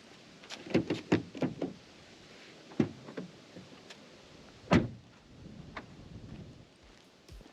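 Car door being handled and shut: a run of knocks and clicks, then one loud thud a little before the five-second mark, followed by a faint whir.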